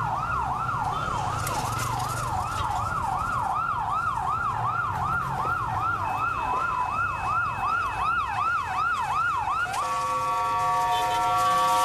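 Emergency vehicle siren wailing in fast rising sweeps, a little over two a second, over low street rumble. Near the end the sweeping stops and a steady held chord of several tones takes over.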